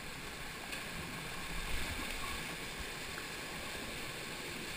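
Steady rushing of a mountain stream pouring down a small waterfall through a rock chute into a pool, with a few brief low bumps about a second and a half in.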